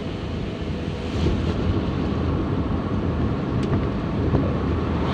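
Car cabin noise while driving: a steady low rumble of engine and road, with tyre hiss from the wet road surface and one brief click partway through.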